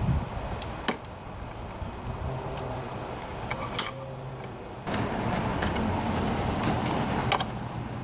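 Hands working the control cables and a plastic cable guide on a push mower's handle: scattered sharp clicks and rattles, over a steady low hum. A louder, noisier stretch of handling starts abruptly a little after halfway and stops with a click a couple of seconds later.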